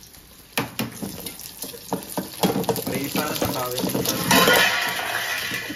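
Kitchen clatter of eggs being cracked against a steel bowl, with sharp clicks and knocks. About four seconds in, a burst of running water joins the clatter, then tails off.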